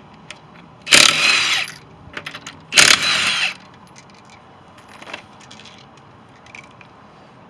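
Impact wrench spinning lug nuts off a wheel in two short bursts about two seconds apart, with small metallic clinks of loosened nuts or tools between and after.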